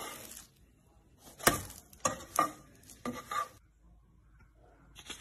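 A spatula knocking and scraping against a nonstick frying pan as a sandwich is flipped: a click at the start, then a handful of sharp knocks and scrapes over about two seconds, falling quiet near the end.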